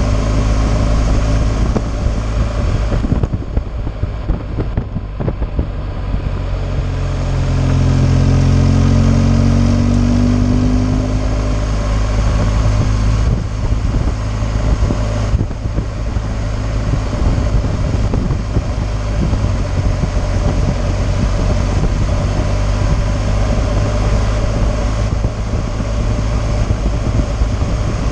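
BMW R 1200 GS boxer-twin engine running at road speed, with wind rushing over the rider. The engine note rises and grows louder as the bike accelerates about a third of the way in.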